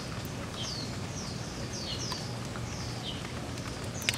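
Short high chirping calls repeat about two a second, each sliding down in pitch, over a steady low background hum. A single sharp click comes near the end.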